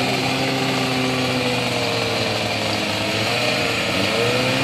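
Two-stroke racing scooter engines (Honda Dio class) running at the start line, a steady buzz whose pitch sags slightly and then rises again about four seconds in.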